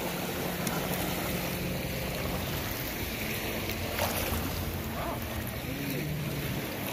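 Wind on the microphone over lake water splashing and lapping as a standard poodle wades out through the shallows, with a low steady drone of a distant motorboat engine underneath.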